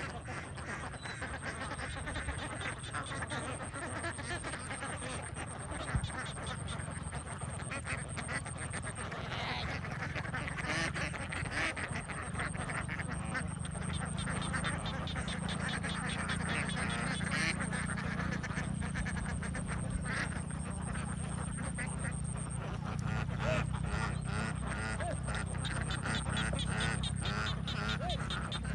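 A large flock of domestic ducks quacking continuously, many birds calling over one another, with a steady low rumble underneath.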